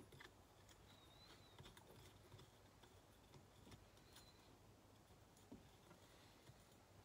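Near silence: room tone with a few faint light clicks.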